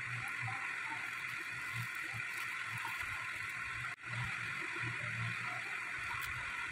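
Steady background hiss with a faint low hum, broken by a brief dropout about four seconds in.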